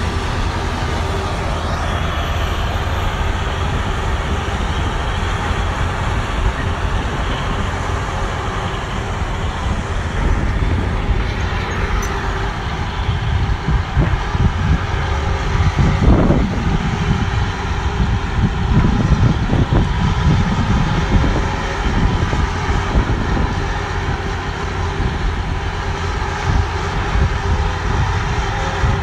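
Heavy diesel earthmoving machinery running steadily: a Caterpillar motor grader, then a Caterpillar 323D hydraulic excavator working. The low rumble swells for several seconds past the middle as the excavator works.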